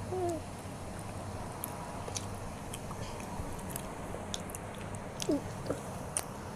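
Close-up eating sounds: a person chewing, with scattered small mouth clicks and smacks over a low steady hum.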